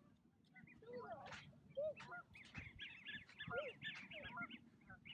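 A flock of geese honking faintly, short calls repeated many times and coming thicker from about halfway through.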